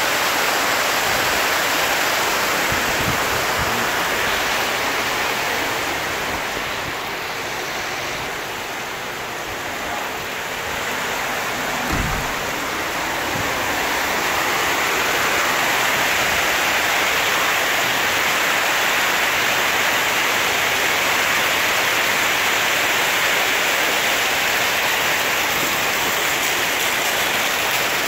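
Heavy rain with floodwater rushing down a cobbled street, a steady loud rushing of water. A single dull knock about twelve seconds in.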